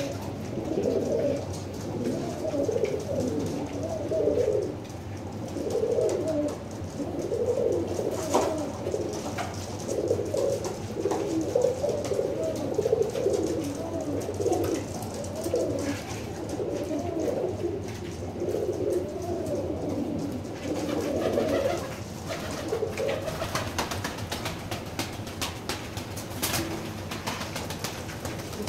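Cuban pouter pigeons cooing, one rolling coo after another and often overlapping, with fewer coos in the last few seconds. This is the courtship cooing of cocks displaying with inflated crops.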